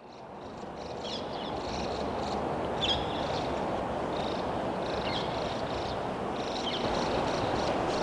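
Short, sharp, high bird chirps in little clusters every second or two, over a steady low outdoor rush, fading in over the first second.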